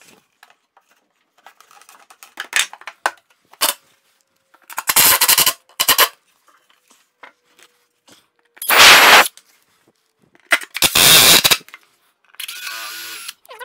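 Cordless Milwaukee drill-driver driving screws into plywood in about six short bursts, the loudest about nine seconds in. Light wooden knocks and clicks of the panels being handled come before the first burst.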